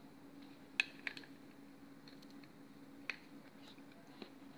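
A few light clicks and knocks as the plastic grip panel of a CO2 revolver is handled and fitted back against its metal frame, over a faint steady hum.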